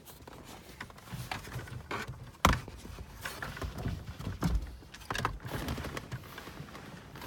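Plastic wiring-harness connectors being handled and plugged in behind a car dash: scattered light clicks and rattles, with one sharp click about two and a half seconds in.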